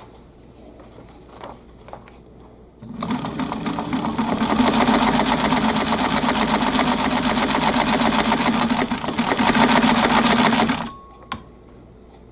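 Kenmore model 117.552 rotary-hook sewing machine, made by White, sewing a test seam. The rapid, even stitching starts about three seconds in and speeds up over the first second. It runs steadily, then stops abruptly near the end, followed by a single click.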